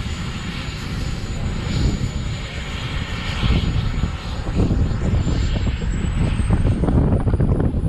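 Small gas-turbine engine of a radio-controlled model jet running with a steady high whine that rises in pitch over the last few seconds, with a low rumble underneath.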